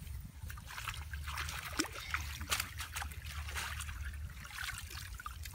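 Hands working in shallow muddy water and wet grass, with many small irregular splashes, drips and trickles, over a steady low rumble.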